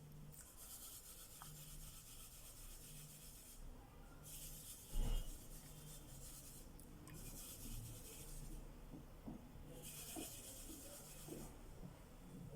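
Faint scratching and rubbing in stretches of a couple of seconds, with one thump about five seconds in.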